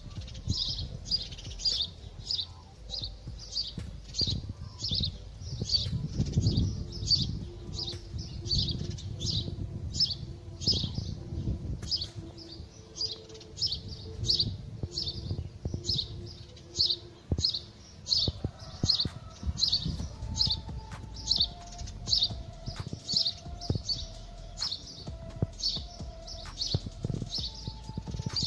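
A small bird chirping over and over, about two or three short high chirps a second, with gusting wind rumbling on the microphone.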